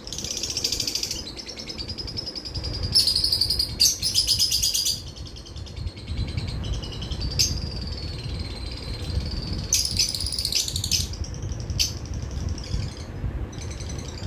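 Pet lovebirds chirping and chattering in high-pitched, buzzy bouts, loudest about three to five seconds in and again around ten seconds in.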